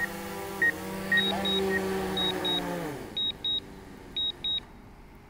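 DJI Mavic 2 quadcopter's propellers humming as it comes in to land; the pitch wavers, then falls and dies away about three seconds in as the motors spin down. Short electronic beeps sound over it, and two pairs of higher beeps follow once the motors stop.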